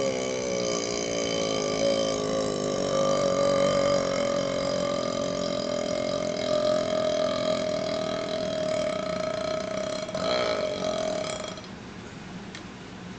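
One long, drawn-out man's burp brought up by chugged Pepsi, its pitch wavering at first and then holding steady, cutting off about eleven and a half seconds in.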